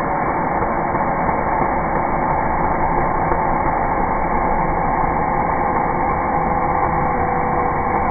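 Cordless drill running steadily, its bit boring into a thin wooden drawer rail.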